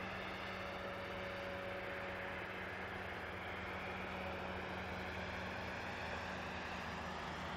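Steady background noise of distant road traffic with a faint low hum running through it.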